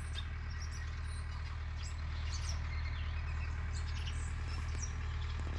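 A steady low rumble, with faint, scattered bird chirps over it.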